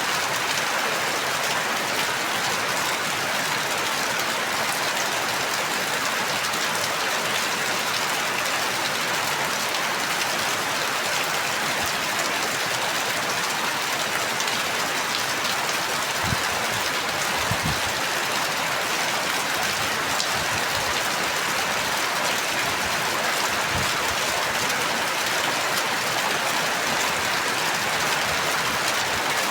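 Steady rain falling, an even hiss of drops, with a few soft low thuds in the second half.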